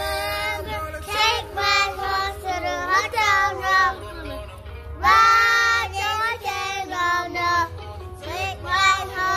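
Children singing, loudest about five seconds in.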